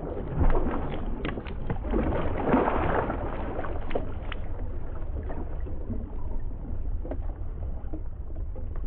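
Thin ice on a rock pool breaking up after an impact: shards of ice skitter, clink and crackle across the frozen surface while the water sloshes underneath. The clinking is dense at first and thins to scattered small clicks after about four seconds.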